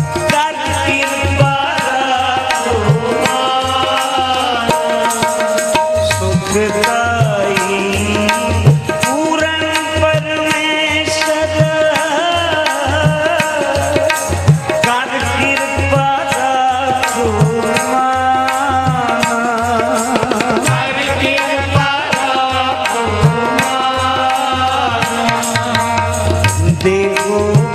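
Sikh shabad kirtan music: tabla playing a steady rhythm under a sustained harmonium melody.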